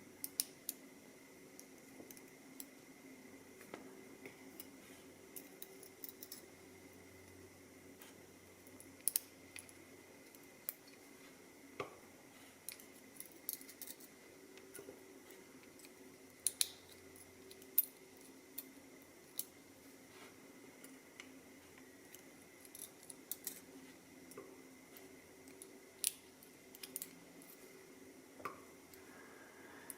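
Faint, irregular metallic clicks and taps as small lock parts and tools are handled, with a shim being worked out of a disassembled Mul-T-Lock MT5+ cylinder. A faint steady hum sits underneath.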